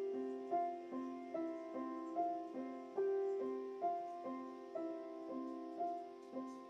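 Background piano music: a melody of evenly spaced notes, about two a second, each struck and then fading.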